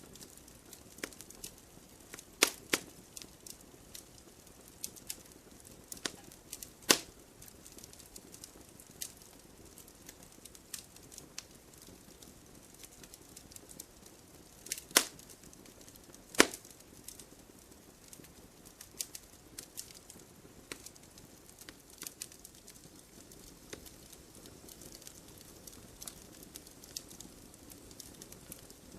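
Wood fire burning in a fireplace: a low hiss with frequent small crackles and a few louder snaps from the logs, about two and a half, seven, fifteen and sixteen and a half seconds in.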